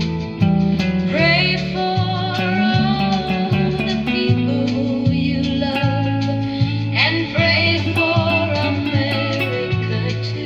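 Country music: guitars over a bass line that steps from note to note, with singing.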